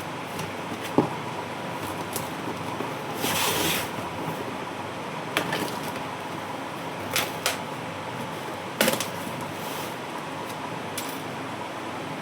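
Handling of packaging and small parts: scattered clicks and taps, with a short rustle about three seconds in, over a steady background hiss.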